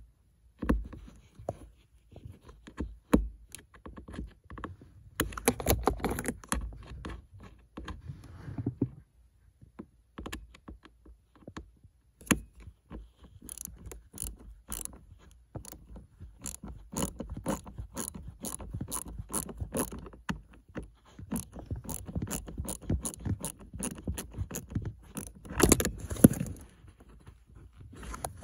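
Clicking and scraping of a stubby screwdriver turning a small screw out of a car's plastic cabin-filter housing, with hand handling noise. In the second half the clicks come in a fairly even run of about two a second.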